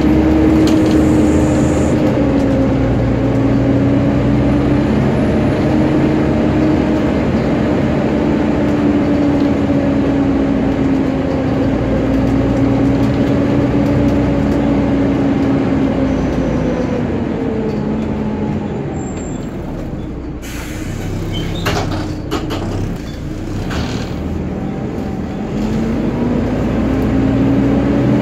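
Volvo B7TL's engine cooling fan whining steadily, the hoover-like sound these buses are known for, over the diesel engine running underneath. About two-thirds through the whine winds down and drops out, with a few clicks. Near the end it spins back up with a rising pitch.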